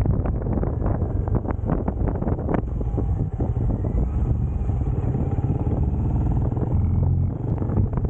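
Benelli Imperiale 400's single-cylinder engine running while riding, with wind buffeting the microphone. The buffeting eases about three seconds in, and the engine note comes through more clearly.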